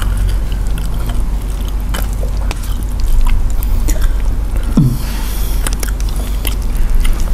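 Close-miked eating: chewing and biting food, with many short wet mouth clicks and smacks over a steady low hum.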